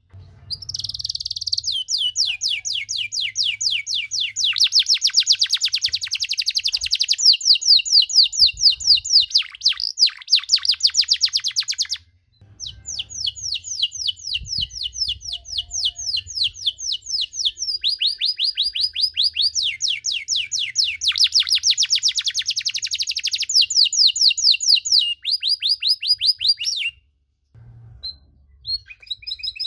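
Domestic canary singing a long song of fast rolling trills, each phrase a rapid run of the same note repeated many times a second, shifting pitch and pace every second or two. There is a brief break about twelve seconds in, and the song stops a couple of seconds before the end.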